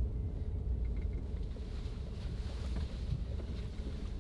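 Ford F-150 pickup driving slowly, heard from inside the cab: a steady low engine and road rumble, with a faint hiss that swells and fades around the middle.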